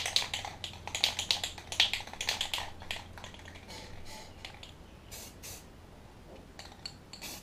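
Rust-Oleum camouflage spray-paint can being shaken, its mixing ball rattling rapidly for about three seconds, then a few scattered clicks. A little past halfway come two short hisses, short bursts of spray.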